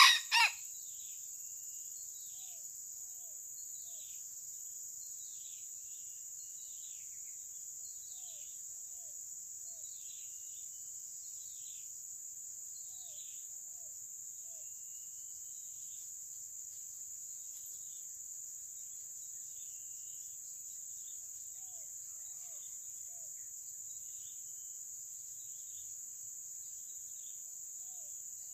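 Steady high-pitched insect drone, with many faint, quick descending bird chirps and soft short notes in twos and threes. The first half second holds the loud end of a red junglefowl rooster's crow.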